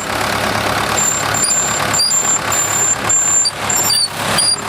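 Bulldozer engine running steadily as the machine drives across the field.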